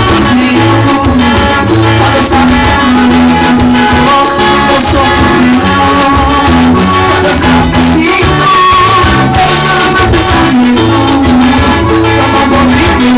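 Gospel band playing an upbeat song with a steady dance beat, bass and percussion.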